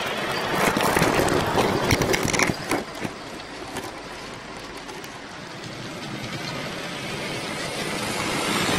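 Model train running along the track: the rolling rumble of the locomotive and coaches with scattered clicks, loudest in the first few seconds as it passes close by. It then fades and slowly builds again near the end.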